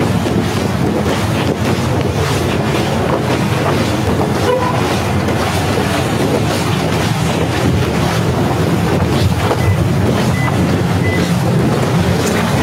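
Snowstorm wind buffeting a phone's microphone: a loud, steady low rumble with rough rustling over it.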